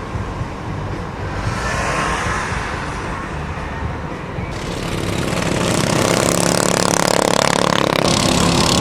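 Racing lawnmower engines running, growing louder about halfway through.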